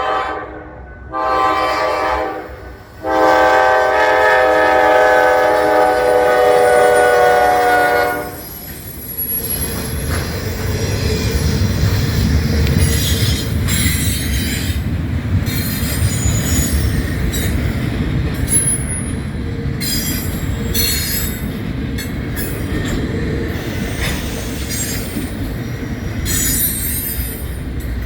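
Norfolk Southern GE Dash 9 diesel locomotive's multi-chime air horn sounding a short blast, then a long blast of about five seconds. The locomotive and its train then pass with a heavy diesel rumble, high squealing from the wheels, and clicking as the wheels cross rail joints.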